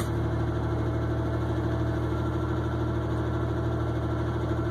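A 1989 Ford Ranger's engine idling steadily with the clutch pedal held down, so the Mitsubishi FM146 transmission is disengaged from the engine.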